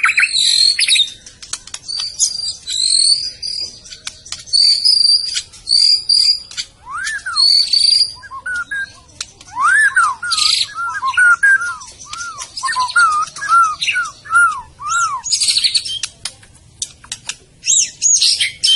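White-rumped shama singing a long, varied song: clear high whistled phrases, then a run of repeated lower rise-and-fall notes at about two a second through the middle, broken by harsh buzzy chatters and sharp clicks.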